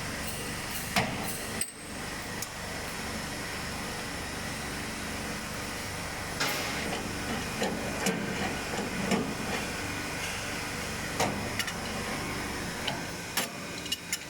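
Scattered short knocks and clicks of tools and metal parts being handled, over a steady background noise.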